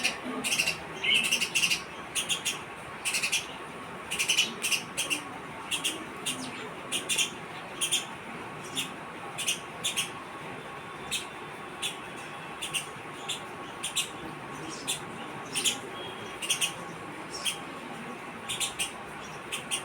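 House sparrows chirping: short, sharp chirps repeated in quick clusters, with a few brief pauses between bouts.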